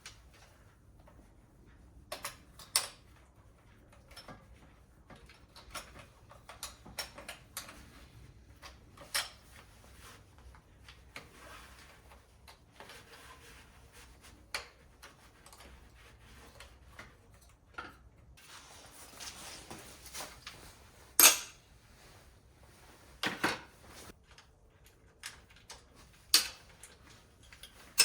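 Scattered sharp clicks, clinks and knocks of small metal hand tools or parts being handled and set down, irregular and sometimes in pairs, with the loudest hits about two-thirds of the way through.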